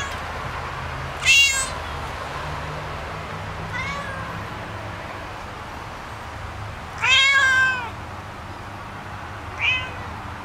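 Domestic cat meowing about five times, the loudest meows a second and a half in and about seven seconds in, the second one longer and drawn out, over a steady hiss.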